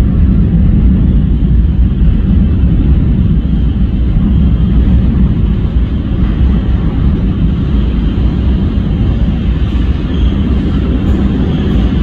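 New York City subway train approaching through the tunnel: a loud, steady, low rumble, with a faint high whine joining near the end as the train comes into view.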